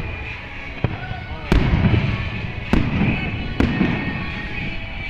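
Aerial fireworks bursting overhead: four sharp bangs roughly a second apart, the loudest about one and a half seconds in.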